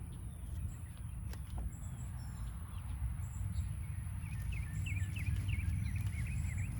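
Steady low rumble of outdoor background noise, with a bird chirping in quick, short notes from about halfway through.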